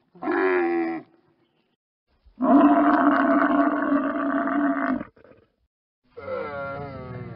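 Camel calls: a short call, then a long steady call of about two and a half seconds, then a third call with a sliding pitch beginning near the end.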